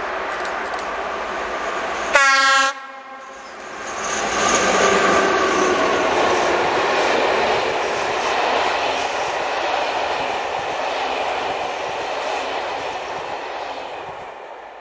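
A passenger train's locomotive sounds one short horn blast about two seconds in, the loudest sound here. The train then passes close by with a steady rush of wheel and coach noise that fades away near the end.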